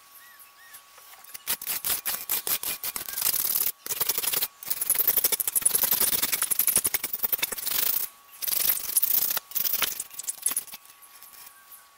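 Quick repeated scraping strokes of hand-held abrasive paper rubbed on the aluminium cylinder block of a Kawasaki ER-5/EX500 twin, deburring an edge. They start about a second and a half in and come in spells with brief pauses.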